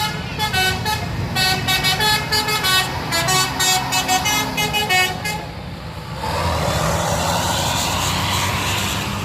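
Bus 'telolet' musical air horn (basuri type) playing a quick tune of short notes that step up and down in pitch for about five seconds. It is followed by a steady, loud rushing noise.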